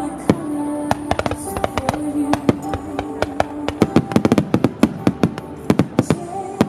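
Starmine fireworks going off in rapid succession, many sharp bangs and crackles, thickest in the second half, over music played for the show.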